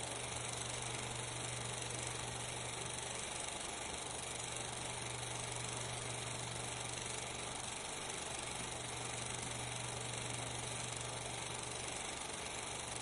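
Steady hiss with a constant low hum underneath. No separate sounds stand out.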